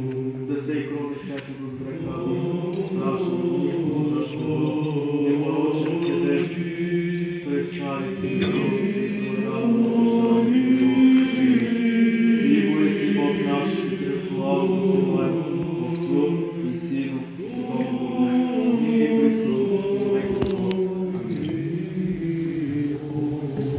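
Several men's voices chanting an unaccompanied Orthodox liturgical hymn in sustained, low, layered notes.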